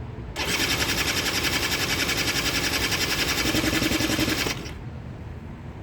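Old quad's engine catching and running in a fast, even patter for about four seconds, then cutting out suddenly, as it does when it has been sitting too long and its carburettor likely needs cleaning.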